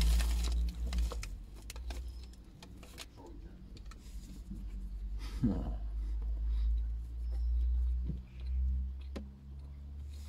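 A person biting into and chewing a cheese and onion pasty, with crisp crunches of the pastry and crinkling of its paper bag, and a short rising hum from the eater about halfway through. A steady low rumble runs underneath.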